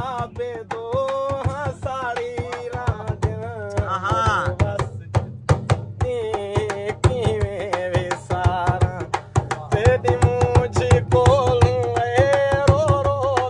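A man singing a Saraiki dohra in long, wavering, ornamented phrases, over fast hand-played percussion beats. The singing breaks off briefly about five seconds in, while the beat carries on.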